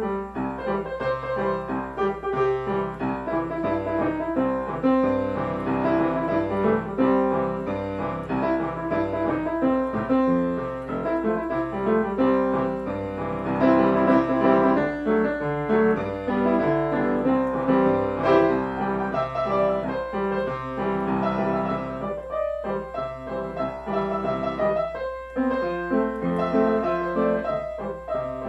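Solo piano playing: a continuous flow of melody over chords, with a couple of short breaks between phrases near the end.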